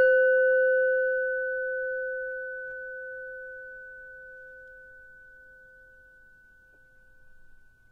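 A meditation bell struck once, ringing with a clear tone that slowly fades away over about seven seconds.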